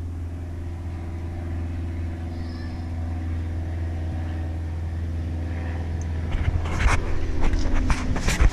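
Propeller airplane flying overhead, a steady low engine drone. In the last two seconds a run of sharp knocks and rustles cuts in over it.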